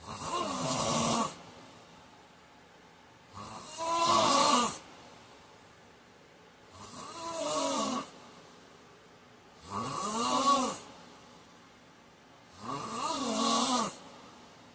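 A man snoring in his sleep: five snores, one about every three seconds, each lasting a little over a second, with quiet breathing gaps between them.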